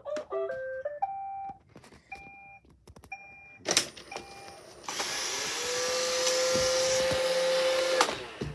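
Roomba robot vacuum sounding a short rising electronic tune and three beeps, then its vacuum motor spins up with a rising whine that settles into a steady whine over a rush of air for about three seconds before cutting off.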